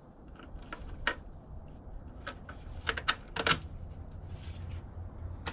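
Irregular light clicks and taps of parts being handled and fitted as the box is put back on over a small inverter generator's carburetor during reassembly.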